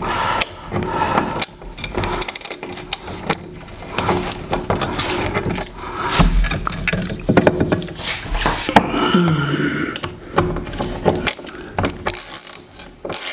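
Hand ratchet wrench clicking in irregular strokes, driving lag bolts by hand through the TV wall-mount bracket into the wall studs.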